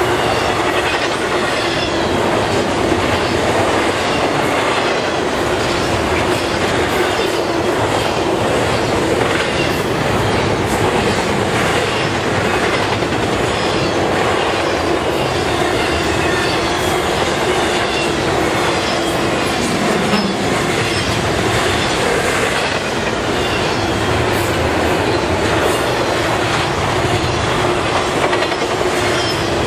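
Intermodal freight train cars, truck trailers on flatcars and double-stack containers in well cars, rolling past at speed: a steady rumble of steel wheels on rail, clicking over the rail joints, with a steady ringing tone underneath.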